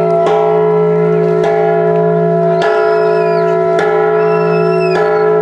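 Church bell tolling loudly, struck about once a second, five strokes in all, each one ringing on under the next.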